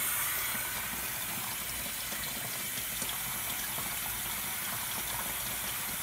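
Water running steadily from the faucet through a hose into the wash tub of a mini twin-tub washing machine, filling it.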